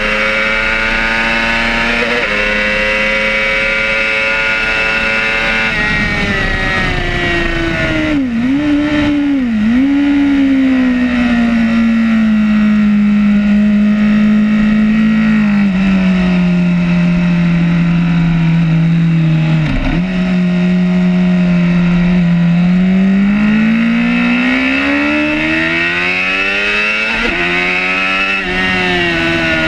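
Superbike engine at full race pace heard onboard, with a steady rush of wind. The revs run high, fall away about six seconds in with a few quick dips and blips as it is downshifted, hold steady and lower through a long stretch, then climb hard with a gear change near the end.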